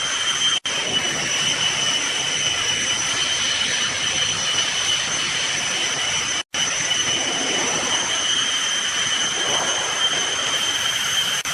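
Manual two-station keg washing machine running: a steady hissing rush with a high whine over it, breaking off for an instant twice.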